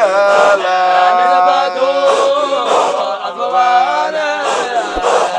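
Group of men chanting a Sufi Qadiriyya dhikr together, the voices holding long, slowly shifting notes.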